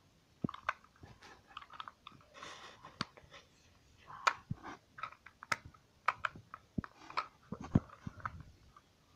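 Irregular small clicks, taps and brief rustles of a Yo-kai Watch toy, its plastic medals and clear plastic packaging being handled.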